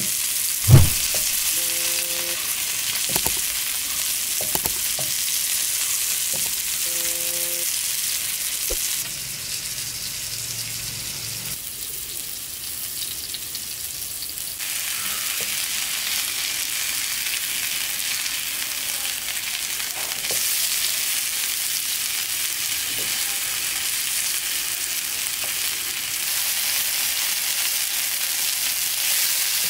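Green-masala-coated fish fillets frying in shallow oil on a tawa, a steady high-pitched sizzle. A single sharp thump sounds about a second in.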